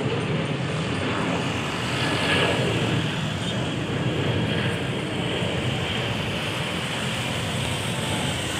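Jet airliner engines during takeoff: a loud, steady rushing noise that swells slightly about two seconds in.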